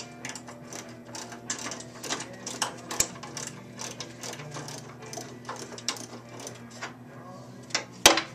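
Camera being handled and taken off its tripod: irregular clicks and rattles, a few a second, with one sharp, loud knock near the end, over a steady low hum.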